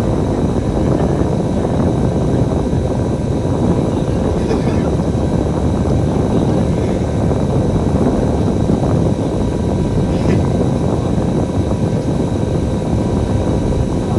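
Bus engine and road noise, a steady loud drone with a faint constant whine above it, with no change through the stretch.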